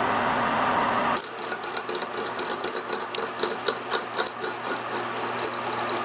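Milling machine at work on metal brackets: a steady cutting noise cuts off abruptly about a second in, leaving the machine's motor hum with many irregular clicks and ticks, and the cutting noise returns right at the end.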